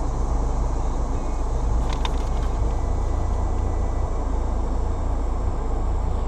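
Jeep Wrangler JLU running slowly along a dirt trail, a steady low engine and drivetrain rumble with a few light clicks about two seconds in.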